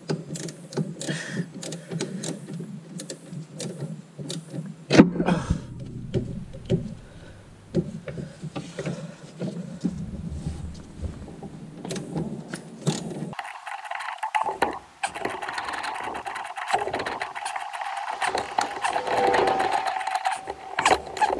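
Clicks and knocks of hand tools and metal parts being worked at the engine's crankshaft pulley during belt fitting, with one louder knock about five seconds in and a run of rapid mechanical clicking in the second half.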